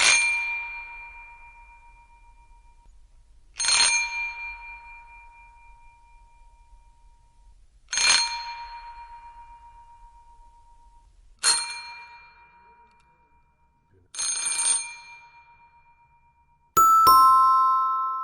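Doorbell sound effects: a single bell is struck and rings out, fading, five times about every three to four seconds, the last a quick double strike. Near the end a different doorbell starts a two-note ding-dong chime, a higher note followed by a lower one.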